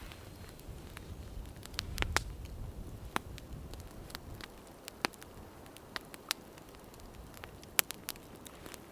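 Wood fire crackling in a tent stove: irregular sharp pops and snaps over a faint steady hiss, with a brief low muffled rumble about two seconds in.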